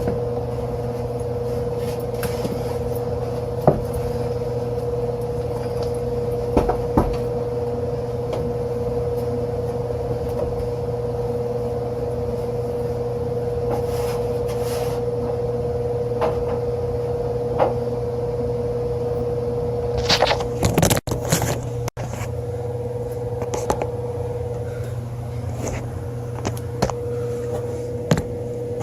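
Steady machine hum with a constant whine, overlaid by scattered clicks and scrapes from parts and panels being handled; a short burst of clattering comes about two-thirds of the way through.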